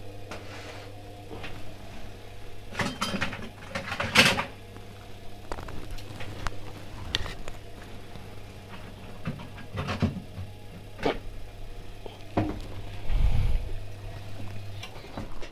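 Steady electrical hum from the washing-machine test rig, with scattered knocks and clatter of objects being rummaged through and handled. The loudest knock comes about four seconds in, and the hum stops shortly before the end.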